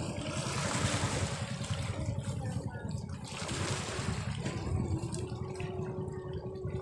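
Sea waves washing against shore rocks, a hiss that swells and fades, over a steady rumble of wind on the microphone. A faint steady hum comes in about five seconds in.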